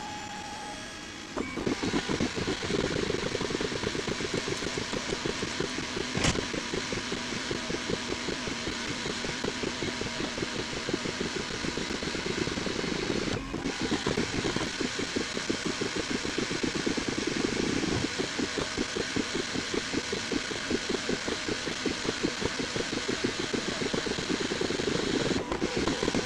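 3D printer's stepper motors buzzing and whirring in a fast, even rhythm as the print head shuttles back and forth laying down yellow filament lines for a flat support layer. The sound gets louder about a second and a half in, and there is one sharp click about six seconds in.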